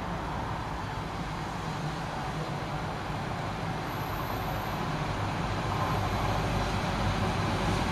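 High Speed Train led by a Class 43 diesel power car approaching, its engine a steady drone that grows gradually louder as the train nears.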